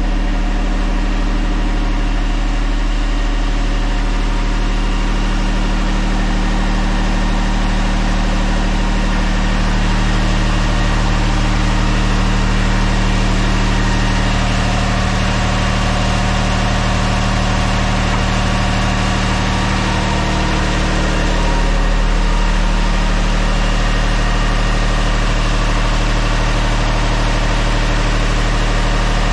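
An engine idling steadily, a constant drone made of several fixed tones, with a slight change in its low tones about ten and again about twenty-one seconds in.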